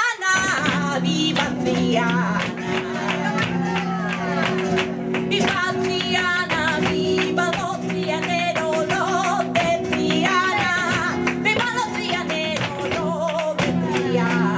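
Live sevillanas: a woman's voice singing flamenco cante with wavering melismatic lines over a strummed flamenco guitar, with sharp percussive clicks throughout.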